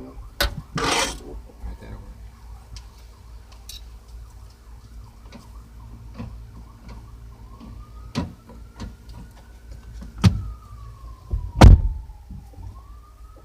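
Scattered clicks and knocks from working on a car door, with two sharp knocks near the end, the louder one last. Behind them a distant siren's tone rises slowly and falls away.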